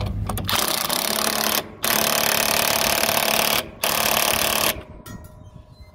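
Bosch cordless impact driver hammering as it runs down and tightens the nut on a conveyor flange bearing's mounting bolt. It fires in three bursts of about one second, two seconds and one second, with short pauses between them.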